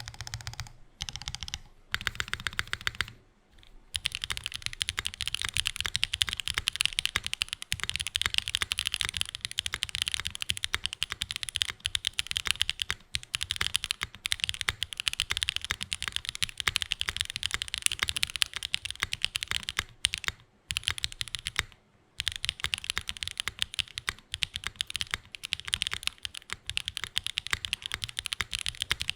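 Mechanical keyboard being typed on rapidly: stock SWK Jieum V2 switches in a Frog Mini board with a laminate plate, mid foam and GMK keycaps. A few short bursts of keystrokes come first, then the typing runs on continuously with two brief pauses about two-thirds of the way through.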